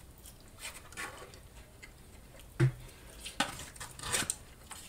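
A fork scraping and tapping in a cardboard takeaway box of loaded fries, in scattered soft clicks, with a louder knock a little past halfway.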